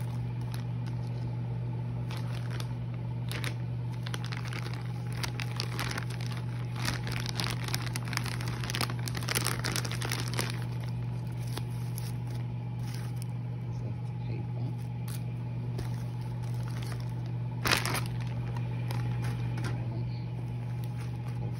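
Clear plastic wrapping crinkling as it is handled, in bursts mostly during the first half, over a steady low hum. There is one sharp knock near the end.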